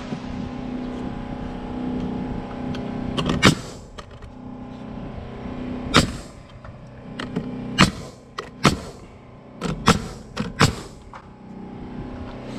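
Pneumatic stick framing nailer shooting nails into the lumber of a doubled wall top plate: about six sharp shots at irregular gaps of roughly a second, with smaller clicks between them, over a steady machine hum.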